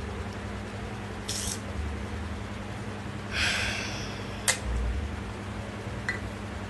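A low steady hum with a woman's breathing close to the phone's microphone: a short hiss about a second in, then a louder sharp breath out through the nose a little past halfway, followed by a single click.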